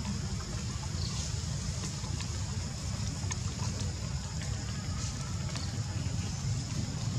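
Steady low rumble of wind buffeting the microphone, with a faint steady high-pitched hum and a few small clicks.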